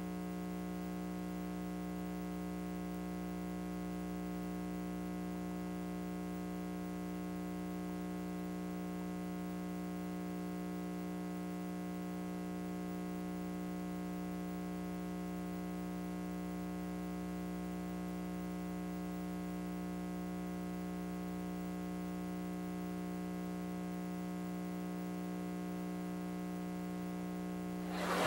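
Steady electrical mains hum with a buzzy string of overtones, holding unchanged; near the end it gives way to voices and audience noise.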